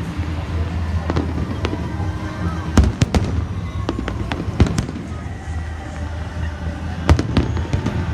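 Fireworks going off: sharp bangs at irregular intervals, the loudest cluster about three seconds in, over a steady low background hum.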